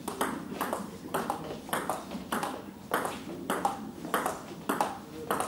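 Table tennis rally: the ball clicking off the paddles and the table in a steady back-and-forth, about two hits a second.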